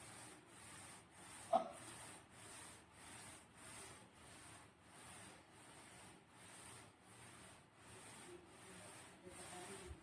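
Slime being worked by hand: a faint, steady rhythm of soft rubbing, squishing strokes, with one sharp click about one and a half seconds in.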